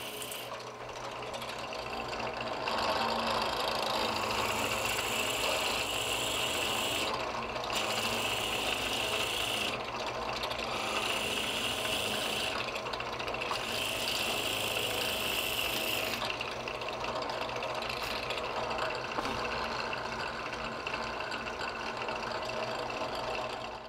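Benchtop drill press running, its 1/2-inch Forstner bit boring holes into a pine block. A steady motor hum lies under the cutting noise, which breaks off briefly about every three seconds.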